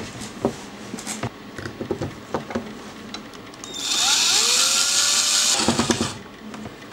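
Small clicks and taps of a metal tripod ball head being handled, then, about four seconds in, a loud grinding rasp lasting about two seconds as it is twisted by hand to screw it onto its base, followed by a few more taps.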